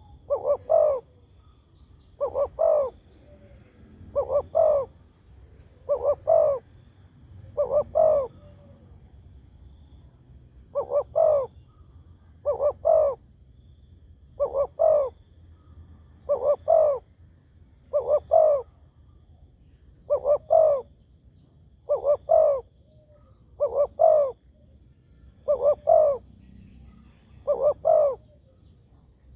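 Spotted dove (tekukur) cooing, a short phrase of two or three quick low notes repeated about once every two seconds: a call used to lure other spotted doves into answering.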